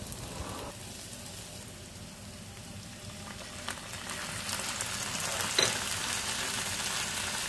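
Browned onions frying in hot oil in a pan, a steady sizzle that grows louder about halfway through as the ground masala paste goes in, with a couple of light spatula knocks.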